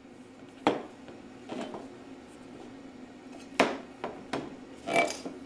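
Metal parts being handled on a welding table: a handful of sharp clunks and clinks as an exhaust pipe, a threaded fitting and a welder's ground clamp are moved and set down, the loudest just under a second in and at about three and a half seconds. A low steady hum runs underneath.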